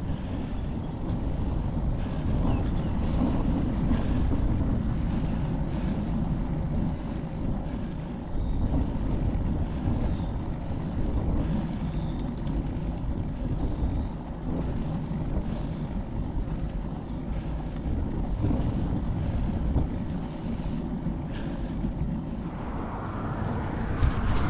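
Wind buffeting the microphone of a handlebar-mounted GoPro Hero 11 on a moving road bike, a steady, unsettled rumble with road noise beneath it. Near the end a higher hiss joins in.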